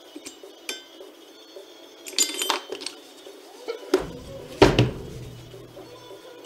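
Metal parts clinking and clanking as a John Deere 4755 tractor's wheel hub is handled on a wooden workbench. The loudest event is a heavy thud about halfway through, as the hub is set down, followed by a short low ring.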